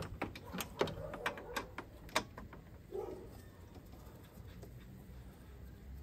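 A/C gauge hose and its quick coupler being handled and snapped onto the car's high-side service port: a series of light clicks and taps in the first two seconds.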